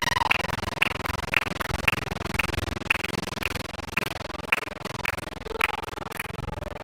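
A steady rhythm of sharp clicks or taps, a little under two a second, which stops about six seconds in.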